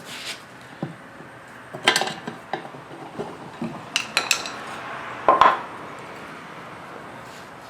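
Metal clanks and knocks as a small snow blower wheel is handled on a homemade bead-breaking stand: a few sharp strikes about two seconds in, two more near four seconds, and the loudest just after five seconds, then only a low steady background.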